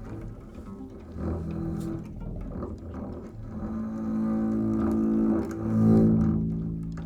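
Music of low bowed strings, double bass or cello, playing sustained low notes that swell louder near the end.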